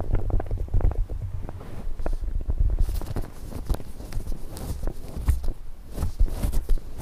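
Fingers, one hand in a disposable glove, rubbing, tapping and pressing a cream-coated brain model close to the microphone: a dense run of small crackling clicks and taps over soft low thuds.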